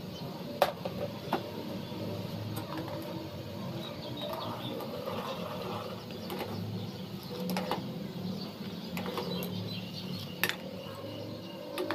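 Steel ladle stirring milk in an aluminium pan, with a few sharp clinks of the ladle against the pan over a steady low hum.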